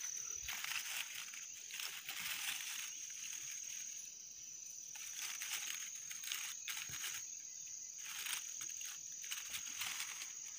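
Insects chirring in a steady high whine, with leaves and brush rustling in patches as someone pushes through undergrowth.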